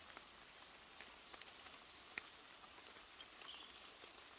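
Near silence in wet forest: faint patter of rain drops on leaves, with a single sharper drip about two seconds in and a few faint bird chirps.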